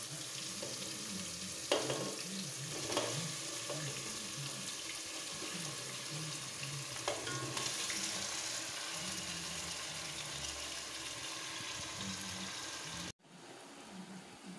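Chicken pieces sizzling as they go into a hot steel pot of frying tomato sauce for a wet fry, a steady hiss with a few sharp clinks of the plate and utensil against the pot. The sizzle cuts off suddenly near the end.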